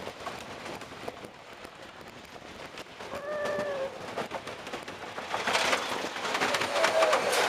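Wooden roller coaster train rattling and clacking along its wooden track in a fast run of clicks, louder over the last couple of seconds. Riders scream briefly about three seconds in and again near the end.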